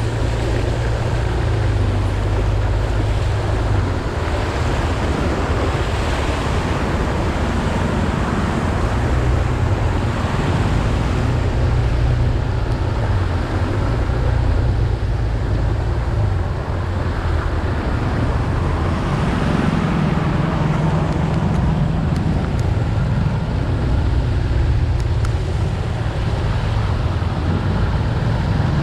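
Motor scooter riding on a wet, flooded road: its small engine runs steadily under a constant rush of wind and water noise.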